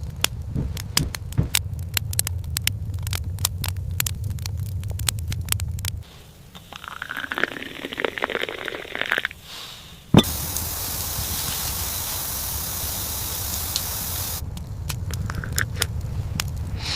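Wood fire crackling with many irregular pops over a low rumble. About ten seconds in, a sharp knock is followed by a few seconds of steady hiss, then the crackling returns.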